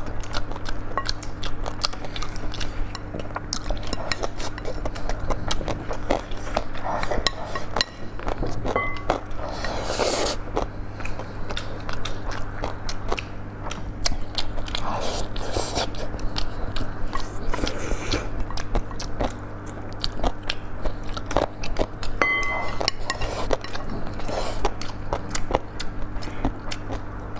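Close-up eating sounds: chewing and biting, with frequent small clicks of chopsticks against porcelain bowls, over a steady low hum.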